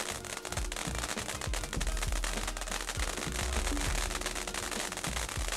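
Black Cat "Great Barrier Reef" firework fountain burning: a steady spray of sparks hissing, with rapid, dense crackling from its crackle effect.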